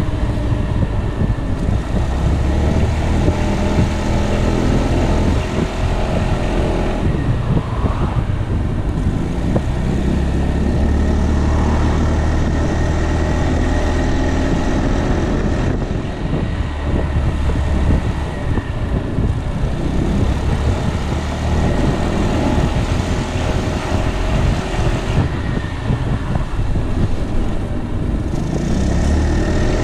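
Piaggio Beverly 300 scooter's single-cylinder four-stroke engine running on the move, its pitch rising and falling with speed, under a heavy low rumble of wind on the microphone.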